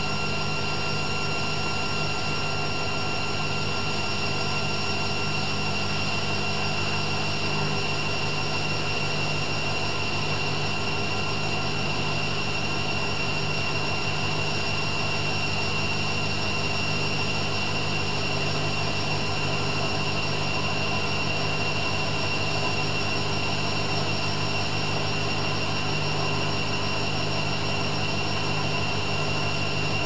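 Hoover Dynamic Next front-loading washing machine spinning its drum at a steady speed, most likely the 400 rpm final spin of a delicates programme. It makes a steady motor whine over a low hum, with no pauses or changes in speed.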